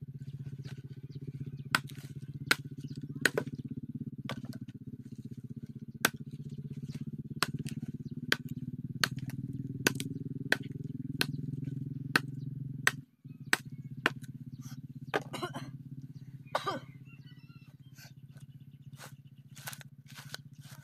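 Bolo knife chopping and breaking dry dead branches for firewood: sharp, irregular chops and cracks about once a second, with a longer splintering crack about two thirds of the way through. A steady low hum runs underneath.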